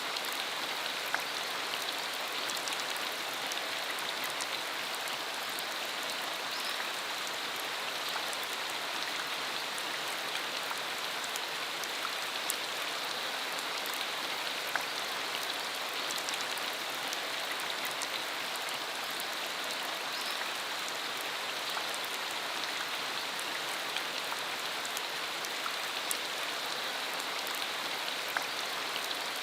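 Steady rain shower falling, an even hiss with scattered sharp ticks of individual drops striking close by.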